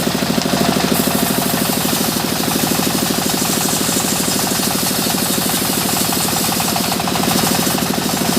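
Sawmill machinery running steadily, with a fast, even engine-like pulse.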